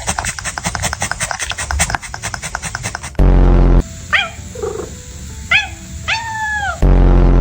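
A pet cat making funny sounds. First a rapid run of clicks, about ten a second, lasts some three seconds. Then come a few short high calls that swoop up and fall away. Two loud low buzzes break in, about three seconds in and near the end.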